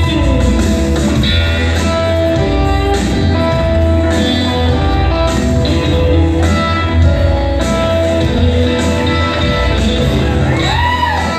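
Blues music played over the sound system: guitar over a steady, heavy bass line.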